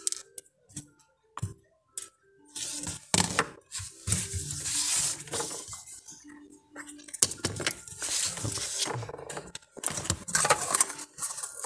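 Tools scraping and clicking on a phone circuit board while leftover solder is cleaned off the SIM socket pads: a few sharp clicks, then longer spells of scraping from a few seconds in.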